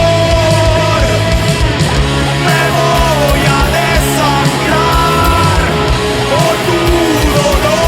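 Heavy rock song in an instrumental passage: distorted guitars and drums under a lead melody of long held notes that bend up and down in pitch.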